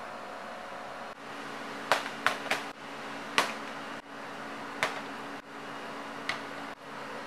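Several sharp clicks and knocks as dishes, a pepper tin and a plastic jug are set down on a stainless-steel counter, over a steady background hum.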